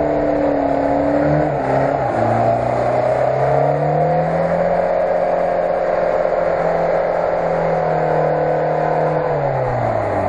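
Lada Niva's four-cylinder petrol engine working under load as the car climbs a muddy, rutted slope. The revs dip about two seconds in, climb back and hold high, then drop near the end.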